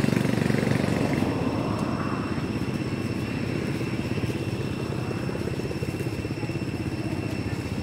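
An engine running nearby with a rapid, even low throb, a little louder at first and then steady, with a thin steady high tone above it.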